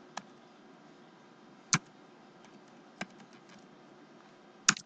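Computer keyboard typing: a handful of scattered, unhurried keystrokes. Two sharper clicks stand out, one just under two seconds in and one near the end.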